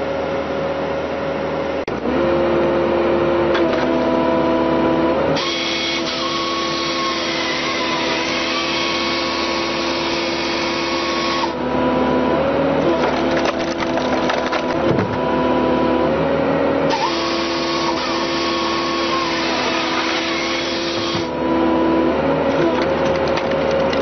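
Engine-driven machinery cutting wood, running steadily with a strong hum whose pitch sags briefly now and then under load. The sound changes abruptly several times.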